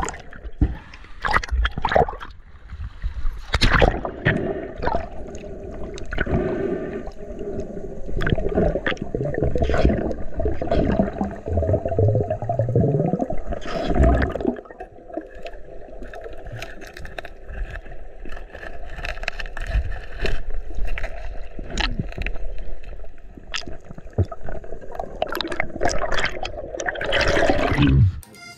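Muffled water noise picked up by a camera held underwater: gurgling and sloshing with many scattered clicks and knocks. Near the end there is a louder rush as the camera breaks the surface.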